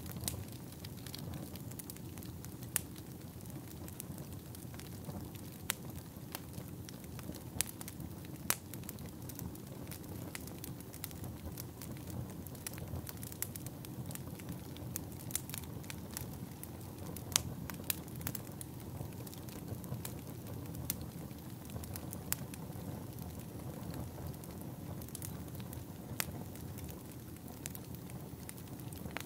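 Fire crackling: a steady low rumble with sharp pops at irregular intervals, a few of them louder than the rest.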